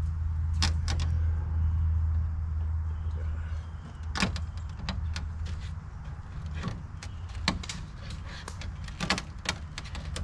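A small power driver's motor humming while it drives a self-tapping screw into thin sheet metal, with scattered clicks and knocks of metal. The hum is strongest over the first few seconds and then eases off.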